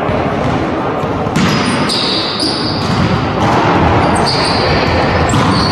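Volleyball rally in a large echoing gym: the ball is struck sharply about three times, roughly two seconds apart, with short high shoe squeaks on the court floor in between, over a steady hall din.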